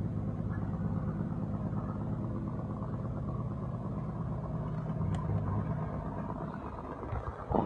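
Truck engine idling steadily, an even low hum with no change in speed.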